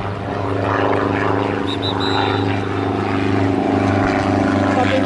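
A steady engine drone holding an even pitch throughout, with a few short high tones about two seconds in.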